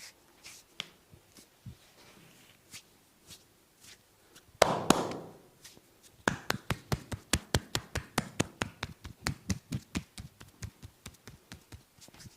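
Percussive hand massage: the masseur's hands strike a person's body in a fast, even rhythm of sharp slaps, about five a second, fading toward the end. Before it come scattered light taps and one louder slapping rub a little under halfway in.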